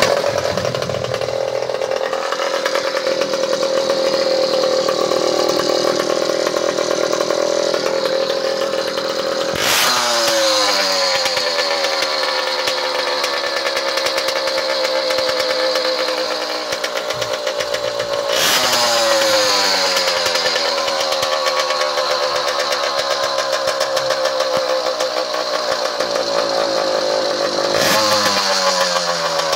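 Small two-stroke bike engine with a 40mm cylinder running steadily at a fast idle, then blipped three times: each time the revs snap up and fall back down, about ten seconds in, around eighteen seconds in and near the end.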